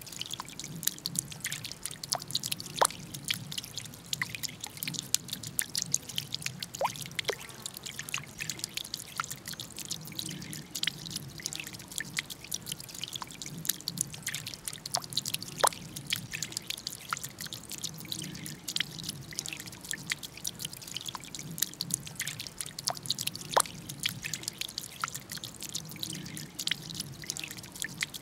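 Water from a carved bamboo fountain's jet falling back into the pond as a steady run of many drips and small splashes.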